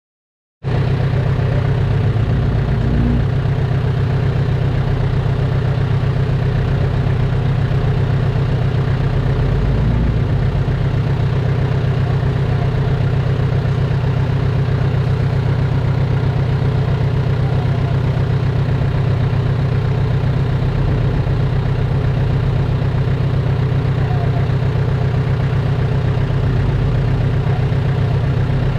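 Heavy diesel engine of earthmoving equipment running steadily at a low, even pitch with a deep drone. The sound cuts in abruptly about half a second in.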